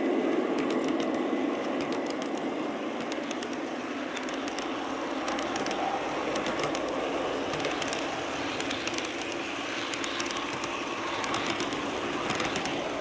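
Large-scale garden model railroad freight cars rolling past on outdoor track: a steady rolling rumble from the wheels, with a rapid, irregular patter of clicks as they pass over the rail joints.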